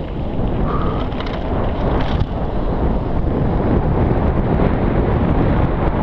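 Wind rushing over the microphone of a mountain bike ridden fast: a steady, loud buffeting rush.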